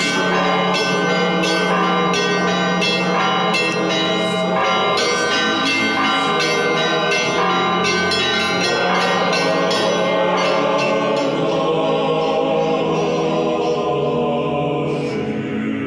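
Church bells ringing in a quick, even run of strikes, giving way about halfway through to held choral music.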